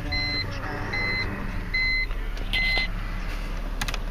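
A car engine idles with a steady low hum while an electronic warning beep sounds five times, about one every 0.8 s, and stops about three seconds in. A couple of sharp clicks follow near the end.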